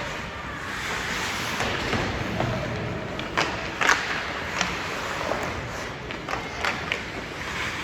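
Game play: several sharp knocks and clacks, the loudest about four seconds in, over a steady noisy hiss and faint crowd shouts.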